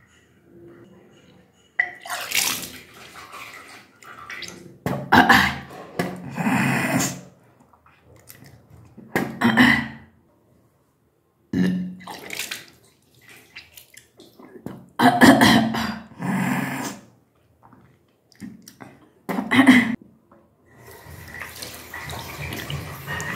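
A woman retching and gagging over a sink in about six bouts, deliberately bringing up undigested food in the yogic vyaghra kriya, with liquid splashing into the basin. Near the end a tap starts running steadily.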